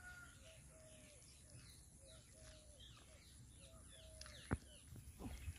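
Faint birds calling and chirping, one short call repeating about twice a second. A single sharp click comes about four and a half seconds in.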